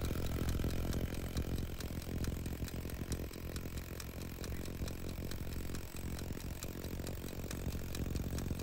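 Parkside 20 V cordless impact wrench hammering continuously on its max setting, driving an M20 bolt tight: a rapid, steady rattle of impact blows over the motor's hum.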